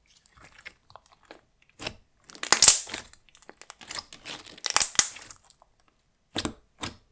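Thick clear slime being stretched, folded and pressed flat by hand, giving runs of quick sticky clicks and pops. There are two louder bursts, about two and a half and five seconds in, then two short single clicks near the end.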